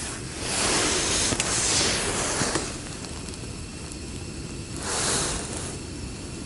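Small gas burner hissing steadily, with two louder swells of rushing noise: one of about two seconds near the start and a shorter one about five seconds in.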